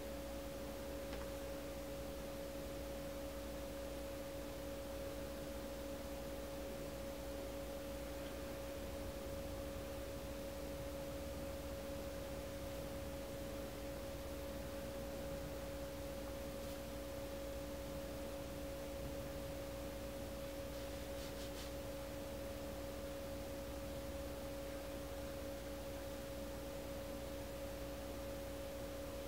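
A steady, unchanging hum of two constant tones over faint hiss and low rumble.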